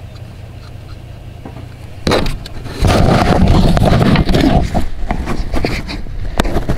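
Microphone handling noise: the camera is picked up and moved, and rubbing, bumps and knocks on it begin about two seconds in and grow loud and rough.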